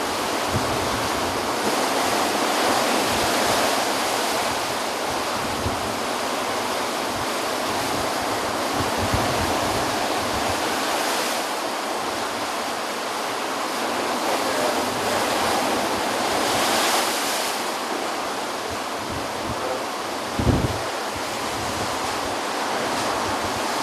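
Heavy surf from a tropical storm, waves breaking and washing over the shore in a steady roar of water and wind. Gusts buffet the microphone throughout, and there is a single low thump about twenty seconds in.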